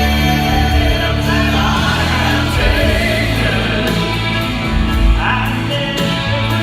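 Gospel vocal quartet singing in harmony over a steady instrumental accompaniment.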